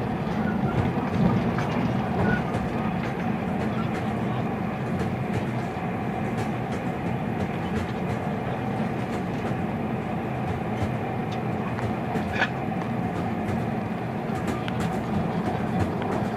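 Steady rumble of a moving train heard from inside the passenger carriage, with a constant hum and scattered light clicks and rattles, one sharper click about twelve seconds in.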